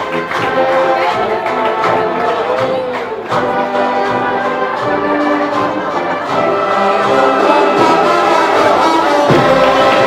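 Brass band playing, with trumpets and trombones holding sustained chords under a moving melody.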